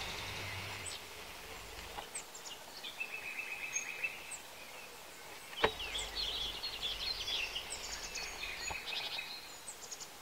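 Songbirds singing in open scrub, a scatter of short high chirps and trills throughout. A single sharp click about five and a half seconds in, with a low rumble on the microphone at times.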